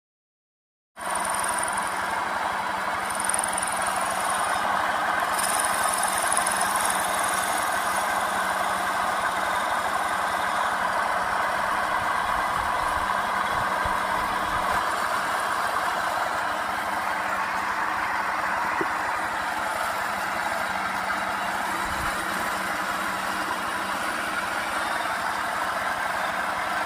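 Electric wood lathe turning a wooden bed leg: a steady motor hum under a continuous rushing, scraping noise that starts abruptly about a second in and holds steady.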